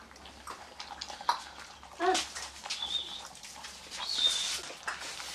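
Pointer puppies lapping from a shallow clay bowl, a run of soft wet clicks from their tongues and mouths. One puppy gives a short whimper about two seconds in, and two thin high chirps come near three and four seconds.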